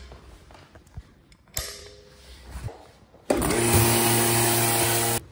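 Fresh-air supply pump for a respirator mask switched on: a small electric motor running with a steady hum and rushing air from about three seconds in, stopping abruptly just before the end. Light knocks and handling of the hoses and gear come before it.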